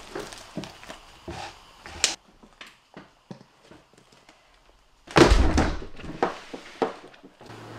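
A large heavy lump of slime being handled, with small sticky clicks and smacks, then about five seconds in one loud heavy thud as the mass drops into a plastic bin.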